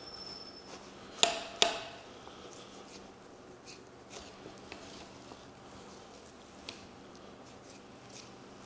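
Two quick, sharp knocks of a butcher's knife against the cutting board about a second in, each with a short ring, followed by faint scattered clicks and light scraping as the knife trims a pork shoulder.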